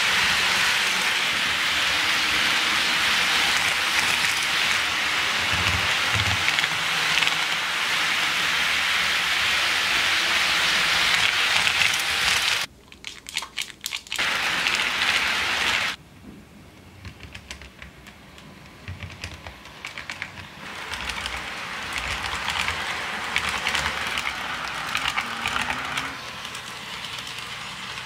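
HO-scale model trains running on Kato Unitrack: a steady rolling hiss and rattle of metal wheels and motor on the track. About halfway through it breaks off into a few sharp clicks as a car's wheelsets are set onto the track, then the rolling sound comes back weaker.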